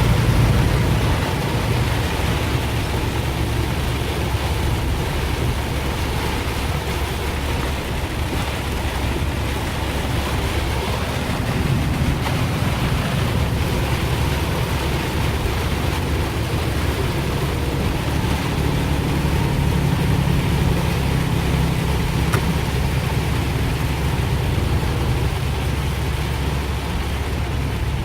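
Steady rushing noise of a rainstorm, with a low rumble underneath.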